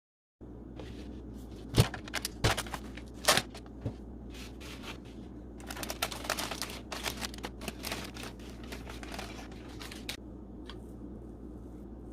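Kitchen handling noises: a few sharp knocks, then several seconds of crinkling and scraping, over a steady low hum.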